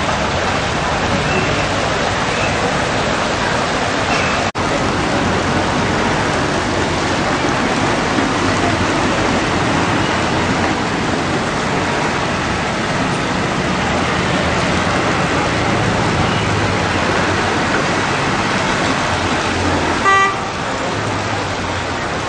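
Steady rushing noise of heavy rain and traffic on a waterlogged city street, with a car horn tooting briefly near the end.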